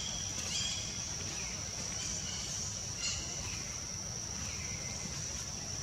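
Steady high-pitched drone of insects, with a handful of short chirping calls scattered through it.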